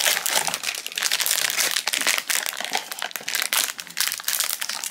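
Crinkling and crackling of packaging handled by hand: a small cardboard blind box is pulled open, then its foil pouch crinkles as it is torn open, in quick irregular crackles.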